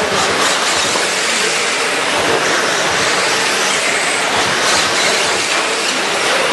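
Several 13.5-turn brushless electric RC trucks racing on a dirt oval: a steady, loud hiss of their motors and of their tires on the dirt.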